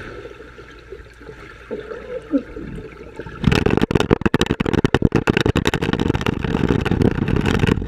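Muffled underwater hush, then about three and a half seconds in, loud close crackling and rushing of bubbles and churned water against an underwater camera's microphone as swimmers kick past.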